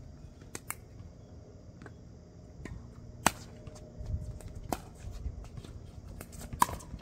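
Pickleball paddles striking the plastic ball during a rally: sharp pops about one and a half to two seconds apart, the loudest a little after three seconds and near the end, with softer ticks between.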